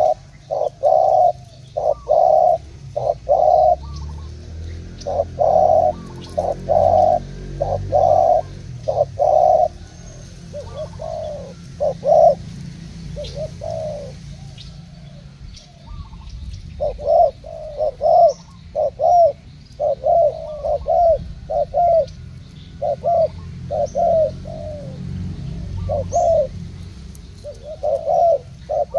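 Spotted doves cooing in repeated phrases of short, low coos. The calls grow sparser and softer for a few seconds in the middle, then come thick again.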